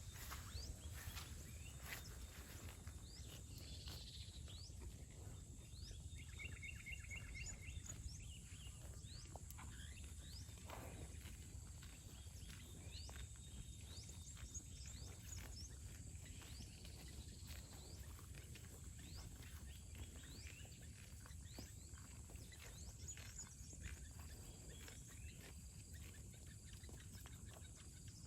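Faint outdoor ambience: many short, high bird chirps, with a quick trill about six seconds in, over a steady high insect tone and a low wind rumble, with scattered light rustles.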